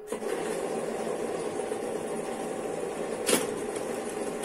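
Circular linking machine (kettel) starting up and running steadily as it chain-stitches the waistband loops onto the dial, with one sharp click about three seconds in.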